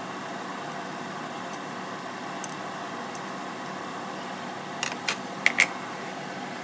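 Metal fork clinking against a ceramic plate a few times, the loudest strikes ringing briefly, about five seconds in, over a steady mechanical hum.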